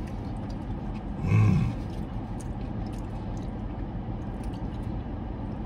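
A man eating, chewing with his mouth closed, with one short, loud hummed "mmm" about a second and a half in, over the steady low hum of a car interior.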